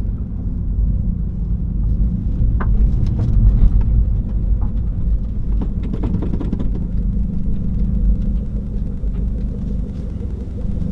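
2015 Subaru WRX's turbocharged 2.0-litre flat-four running through a muffler-delete exhaust, a steady low rumble while driving. A few light pops come through between about two and seven seconds in.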